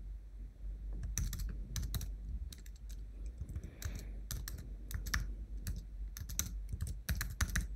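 Typing on a computer keyboard: irregular key clicks in short runs, over a steady low hum.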